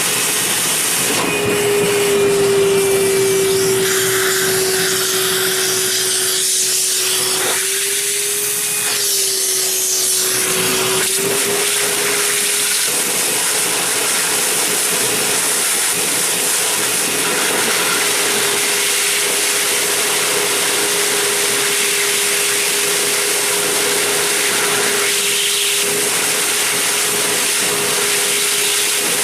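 Wet/dry shop vac running with its hose on a clogged sink drain, sucking water and clog debris up through the pipe. A steady rushing noise is joined about a second in by a steady whistle-like tone from the suction, which wavers, weakens midway and comes back.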